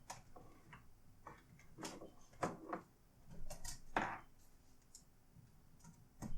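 Irregular light clicks and taps from handling a laptop and its parts on the bench, about a dozen in all, with the sharpest click right at the end.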